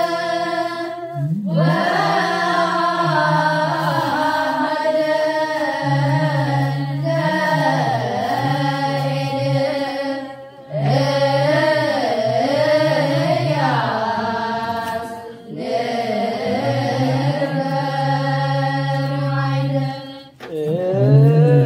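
Ethiopian Orthodox wereb chant sung in unison by a group of voices, in long held, wavering phrases with brief breaks between them.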